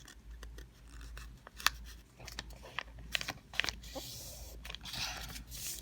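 A sheet of paper being folded and creased by hand: crinkling, rustling and sharp little crackles as the folds are pressed flat, irregular throughout.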